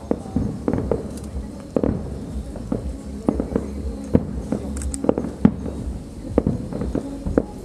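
Aerial fireworks bursting: a rapid, irregular series of sharp bangs and pops, several a second, over a steady low rumble, with the loudest bangs in the middle.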